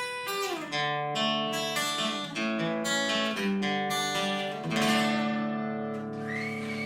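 Acoustic guitar playing the closing phrase of a song: a run of picked notes, then a final chord struck about five seconds in and left to ring out.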